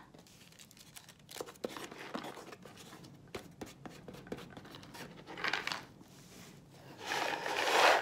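Tissue paper and newspaper crinkling and rustling as they are pressed onto a glued cardboard box, with scattered small clicks. There is a louder, longer rustle near the end as the box is turned over.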